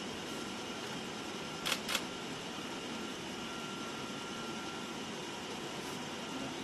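Steady mechanical hum of a small painting robot at work, with a faint high tone. Two sharp clicks a quarter-second apart come about two seconds in.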